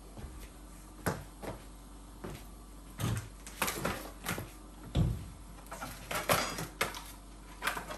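Irregular clicks, clacks and knocks of metal frame tubes and fittings being handled and fitted together while assembling a baby jumper stand, with one heavier thump about five seconds in.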